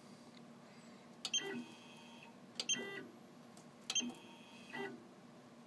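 Magic 70 CNC engraving machine clicking and beeping: three short clicks about a second and a half apart, each with a brief electronic tone, and a fainter one near the end. The pattern fits the machine's controls being pressed to jog the rotary axis and set the engraving area inside the ring.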